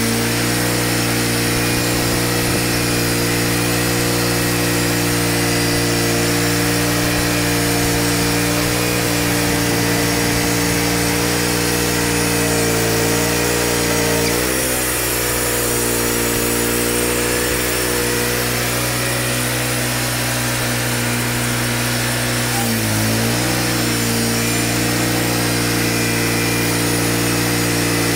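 Wood-Mizer LT35 band sawmill running under load, its band blade cutting through a pine log over the steady note of the mill's engine. The engine's pitch dips briefly about halfway through and again later before settling back.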